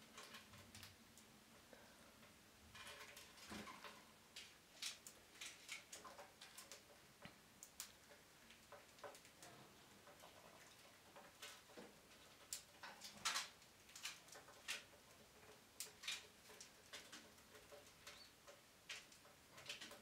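Faint, scattered tiny squeaks and clicks from a newly hatched bird chick held in a hand, short and irregular, the loudest about two-thirds of the way through.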